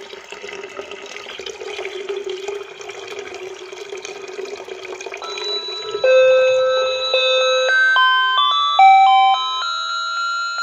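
Water pouring and splashing into a bucket. About six seconds in, a battery-powered water tank alarm starts playing an electronic doorbell-style melody of stepped notes, the signal that the water has reached the level sensor and the tank is full.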